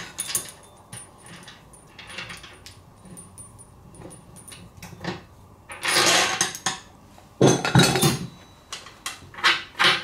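A steel press tool being taken apart by hand: metal parts clinking and knocking together, with two louder, longer spells of rattling about six and eight seconds in.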